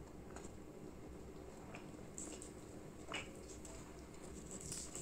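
Faint squishing of fingers mixing rice with meat curry on a plate while eating by hand, with a few soft clicks scattered through.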